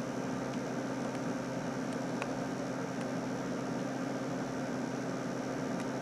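Steady mechanical hum with hiss, like a fan running, with a few faint ticks.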